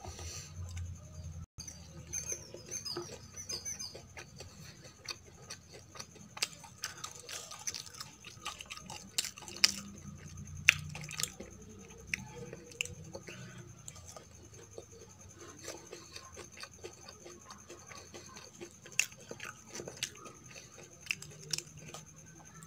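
Close-miked chewing of a soft, syrupy kala gulab jamun, with many small irregular mouth clicks and lip smacks.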